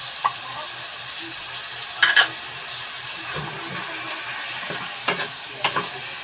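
Pork pieces sizzling as they are sautéed in oil in a stainless steel pan, stirred with a wooden spatula that knocks and scrapes against the pan a few times, loudest about two seconds in.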